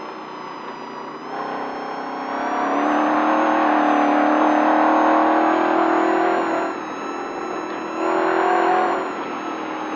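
Desert race truck engine heard from inside the cab, on and off the throttle: it runs quieter for the first couple of seconds, pulls hard and loud for about four seconds, eases off, then gets a short burst of throttle near the end.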